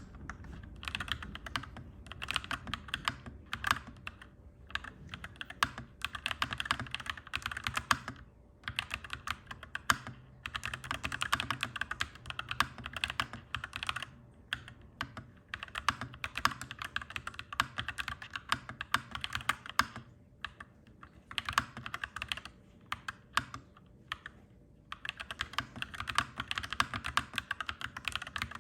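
Mechanical keyboard being typed on, clacky keystrokes in fast continuous runs broken by short pauses every few seconds, over a faint steady low hum.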